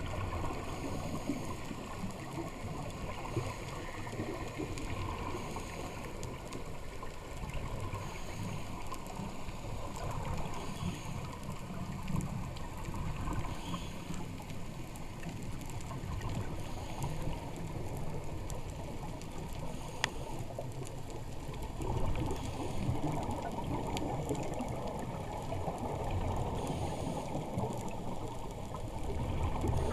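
Muffled underwater water noise picked up by a camera in its waterproof housing: a steady low rush with a few faint clicks.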